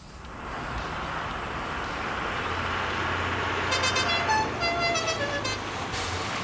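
School bus pulling up, its engine rumble growing as it arrives, then sounding its horn in several short honks about four seconds in.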